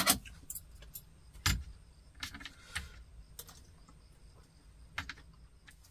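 A handful of short, scattered clicks and light taps from chopsticks picking food off a tray, the sharpest about a second and a half in, with quiet between them.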